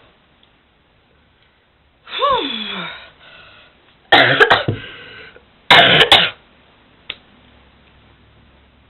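A person gives a voiced groan that falls in pitch, then coughs hard in two fits, each of a few sharp coughs, about a second and a half apart; the coughs are the loudest sounds.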